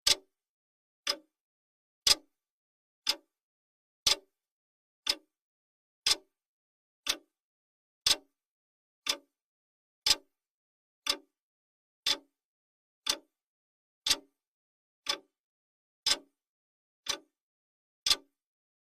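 Clock-style ticking from a countdown timer, one sharp tick each second with silence between.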